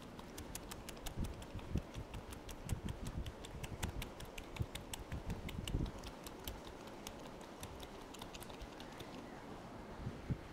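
A long, irregular run of fine, sharp crackling clicks, several a second, over soft low bumps of hands working on the head: hair cracking during an Indian head massage. The clicks thin out and stop about a second before the end.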